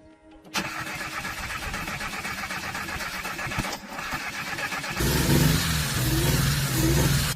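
Moskvich 401 car engine running with a rapid, even beat, starting up about half a second in. About five seconds in it gets louder, with the pitch rising and falling as it revs.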